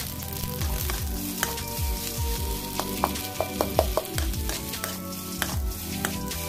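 Fried rice sizzling in a metal wok while a metal spatula stirs it, scraping and clicking against the pan, with a quick run of strikes a little past the middle. Background music plays underneath.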